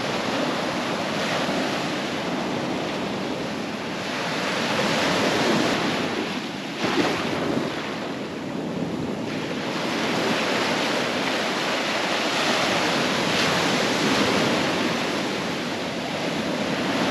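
Ocean surf breaking and washing up a sandy beach in foam, its rush swelling and ebbing as each wave comes in.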